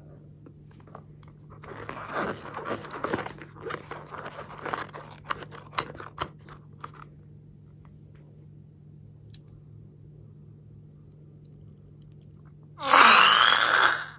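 Slime-filled rubber balloon being handled, with a few seconds of crackly clicking and crinkling, then a loud squelching spurt near the end that lasts about a second as glossy slime is squeezed out of the balloon's open tip into a glass bowl.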